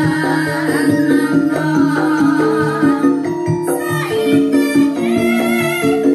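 Live music: female singers performing into microphones over electronic keyboard accompaniment, with wavering, vibrato-laden held notes in the first half.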